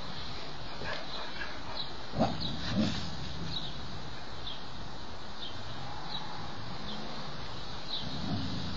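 Boxer dog giving two short woofs about two and three seconds in, a wary warning at something it is afraid of.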